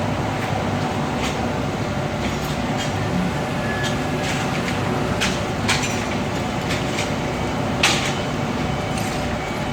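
Steady machinery rumble and hum with scattered sharp clicks and knocks; the loudest click comes about eight seconds in.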